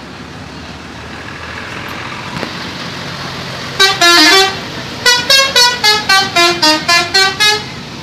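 Bus telolet horn, a multi-tone musical horn, playing: a blast of about half a second some four seconds in, then a quick run of about ten short notes, roughly four a second, stepping down and then back up in pitch, over steady traffic noise from the passing bus.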